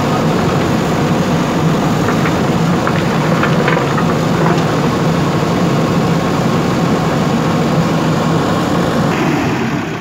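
JCB 3DX backhoe loader's diesel engine running steadily while the backhoe arm works, with a few light clicks about two to four and a half seconds in.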